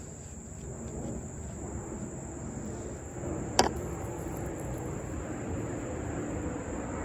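Steady high-pitched insect drone over a low rumble, with one sharp click about halfway through.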